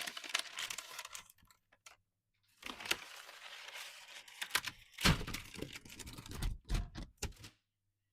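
Dry crackling and clicking in three short bursts, like crisp things being handled, with a run of sharp clicks and low knocks from about five seconds in.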